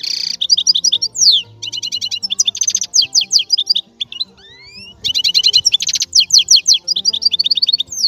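A songbird singing fast, rapidly repeated trills and sweeping whistles, with a short lull about four seconds in.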